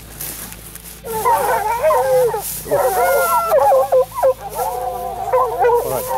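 A pack of hunting hounds baying about a second in, several drawn-out wavering voices overlapping and going on without a break.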